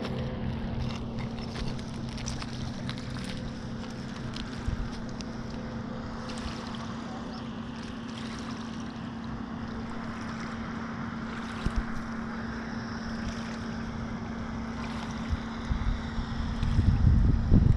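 Boat engine running at a steady pitch, a constant drone. Wind buffets the microphone near the end.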